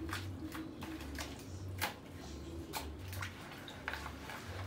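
Wet squelching and irregular clicks of hands massaging jerk seasoning into raw chicken pieces, with a low hum pulsing on and off underneath.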